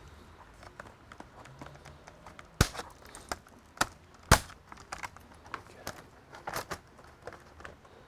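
Irregular clicks and knocks of a laptop's plastic case and tools being handled during disassembly, with two loud sharp snaps about two and a half and four seconds in.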